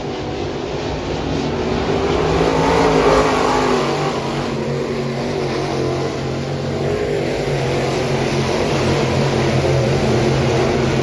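Crate late model dirt-track race cars running in a pack, their V8 engines revving with several pitches rising and falling over one another. The sound swells about three seconds in and again near the end.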